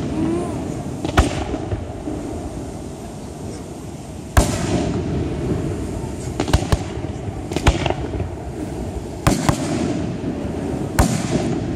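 Aerial fireworks display with shells bursting overhead: about eight sharp bangs come at irregular gaps of one to two seconds, two of them close together near the middle, over a steady low rumble.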